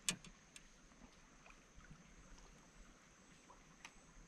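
Near silence, broken by a sharp click right at the start, two fainter clicks just after it and one more near the end.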